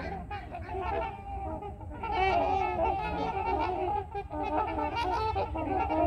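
A flock of trumpeter swans calling continuously in many overlapping honks, getting louder about two seconds in: the noise of a pecking-order dispute among the swans.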